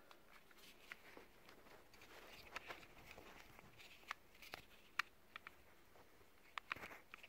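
Quiet handling noise: scattered faint clicks and light knocks, irregular and a second or so apart, as a long-nose utility lighter is moved about on a workbench.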